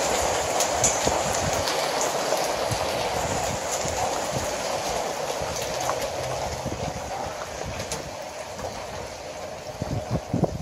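Rain pouring down in a steady hiss that slowly grows quieter, with a few low thumps near the end.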